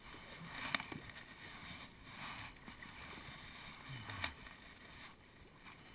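Kayak paddle strokes: the blade of a double-bladed paddle dipping into the water with a short splash every second and a half or so, over the steady wash of water.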